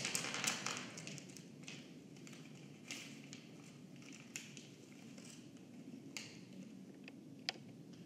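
Faint rustling and crackling of a crumpled sheet handled against the face, with small sharp clicks scattered throughout, a little louder at the very start.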